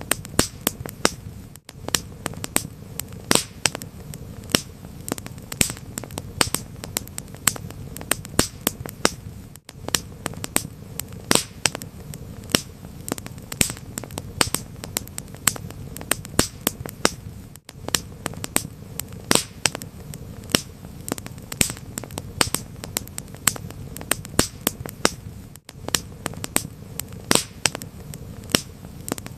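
Wood fire crackling: many irregular sharp pops and snaps over a low steady rumble, with a brief dropout about every eight seconds.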